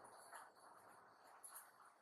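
Near silence, with a couple of faint ticks.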